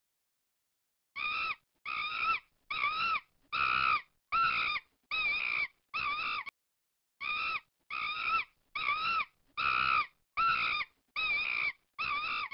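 Fourteen short, high-pitched animal calls in two runs of seven, each call arching up and down in pitch.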